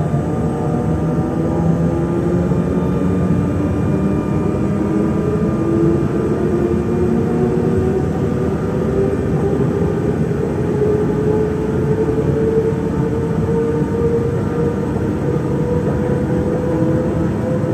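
Z2N (Z 20500-series) electric multiple unit running, its traction equipment giving a whine over a low rumble. Several whining tones climb slowly in pitch as the train gathers speed.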